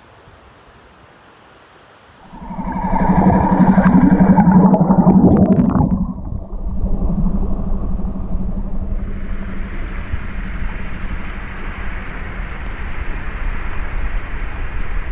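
Small outboard motor on an inflatable Zodiac cuts in suddenly about two seconds in and runs steadily, loudest for the first few seconds. From about nine seconds in, water hissing and splashing from the boat's wash joins the engine.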